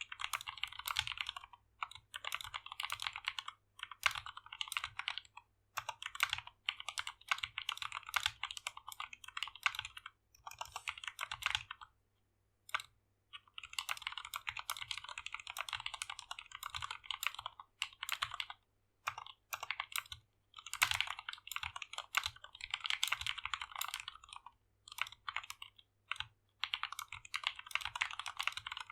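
Typing on an SK61 60% mechanical keyboard fitted with lubed Gateron Optical Brown tactile switches, XDA keycaps, an aluminium plate and a plastic case: fast runs of keystroke clicks in bursts with short pauses, the longest about twelve seconds in.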